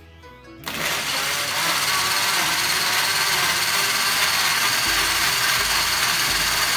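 Countertop blender switching on about a second in and then running steadily at full speed, its blades churning apple and cucumber chunks, mint, ice cubes and water into juice.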